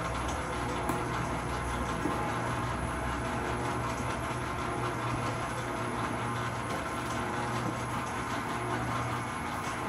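Commercial planetary stand mixer running steadily, its motor and gearbox giving a constant hum.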